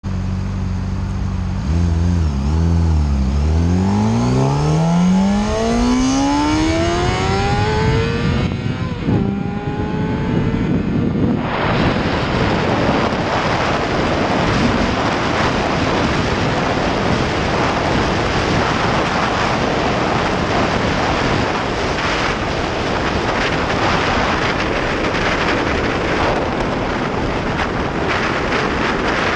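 Honda CBR600RR inline-four engine idling, then pulling away under hard acceleration, its revs climbing in long rising sweeps broken by gear changes. From about a third of the way in, wind noise at high speed drowns most of the engine.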